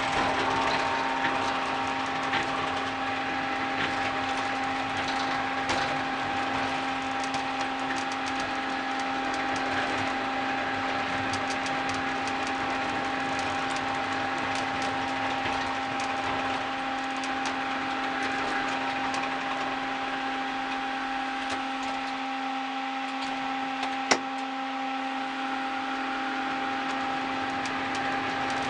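Ride-on mini train running on its track: a steady, even motor whine with light ticking and rattling from the wheels, and one sharp click near the end.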